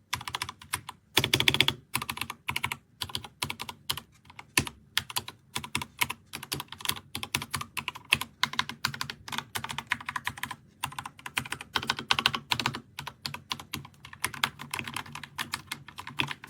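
RK Royal Kludge RK61 60% mechanical keyboard being typed on fast in a sound test: a dense, continuous clatter of key presses, loudest in a burst about a second in.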